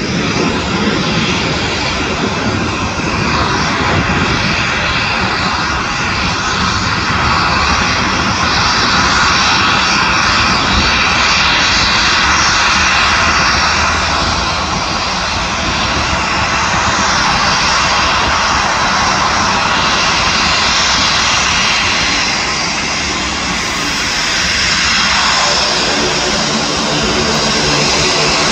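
Twin Garrett TPE331 turboprop engines of a Dornier 228-212 running at low taxi power, a loud steady turbine whine mixed with propeller noise. Near the end, as the aircraft turns to face the listener, a set of even propeller tones comes through more clearly.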